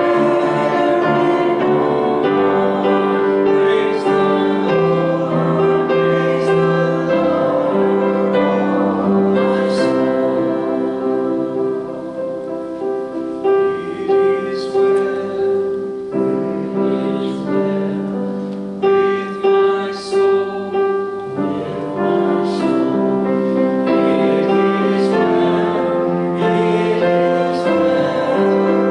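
Slow piano music with sustained chords.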